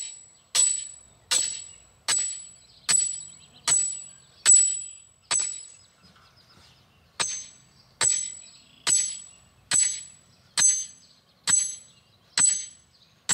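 Sledgehammer blows on the top of a steel T-post, driving it into the ground by hand in place of a post pounder: sharp metallic clangs with a high ring, a little under a second apart, about fifteen in all with one short pause near the middle.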